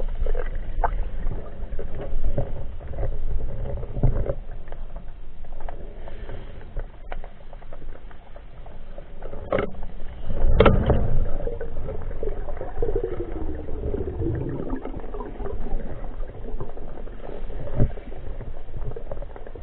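Underwater sound as heard by a camera in a waterproof housing: a constant low rumble of moving water, with scattered clicks and knocks. The loudest knock comes about ten seconds in, and a little later there is a faint tone that slides down in pitch.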